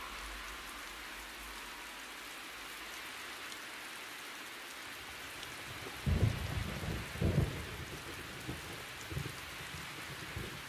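Steady rain falling, with low rumbles of thunder swelling several times from about six seconds in.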